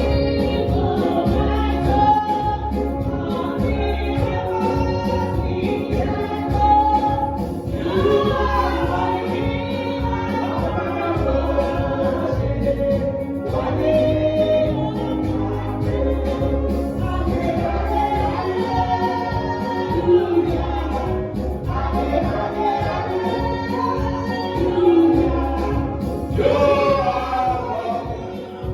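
Gospel worship singing: a group of voices singing a slow song over steady instrumental backing.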